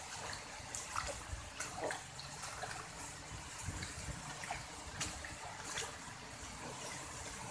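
Steady rain hiss with scattered drips and taps, and wind rumbling on the microphone.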